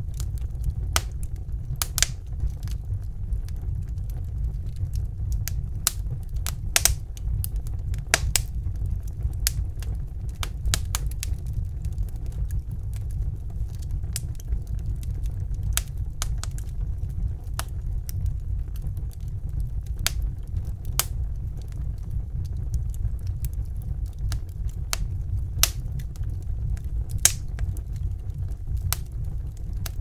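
Wood fire crackling: irregular sharp pops and snaps over a steady low rumble.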